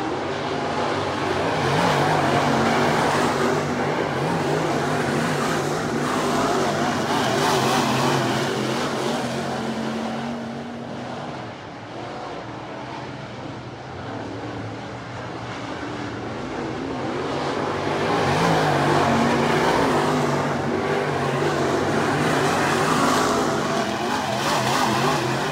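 Dirt late model race cars running laps on a dirt oval, their engines swelling and fading as they pass, with a quieter spell around the middle when the cars are on the far side.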